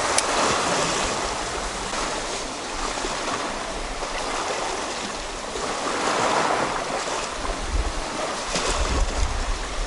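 Sea waves washing against a rocky shore, swelling near the start and again about six seconds in, with wind buffeting the microphone toward the end.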